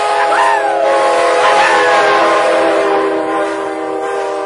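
Amtrak Pacific Surfliner F59PHI locomotive's multi-chime air horn sounding one long, loud blast as the train passes close by at speed.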